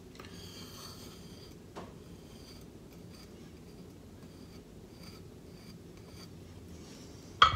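Faint scraping of a straight razor's steel corner being rubbed against a hand-held 1K whetstone to blunt it so it won't cut the cheek; a sharp click near the end.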